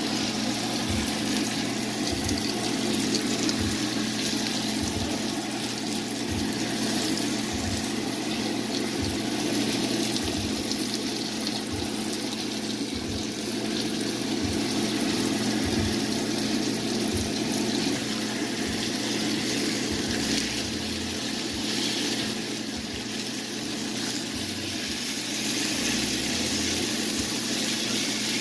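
Salmon fillets sizzling in a hot cast iron skillet, a steady frying hiss.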